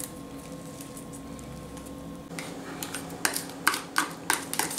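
A metal spoon clicking and scraping against a small plastic cup as chili paste is scooped out, in a quick irregular run of sharp clicks from about halfway through. A faint steady hum comes before them.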